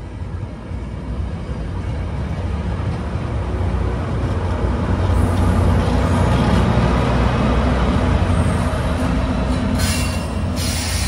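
Diesel-hauled train passing close by: a deep rumble of engine and rolling wheels that grows louder over the first half and holds, with a sharp high-pitched noise near the end.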